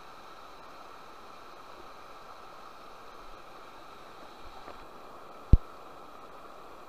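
Steady rush of a shallow mountain river running over rocks, with a single sharp knock about five and a half seconds in.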